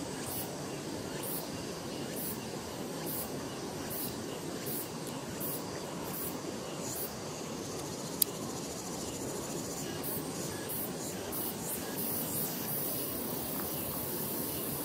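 Outdoor ambience: insects chirping in short, repeated pulses over a steady rushing noise, with one sharp click about eight seconds in.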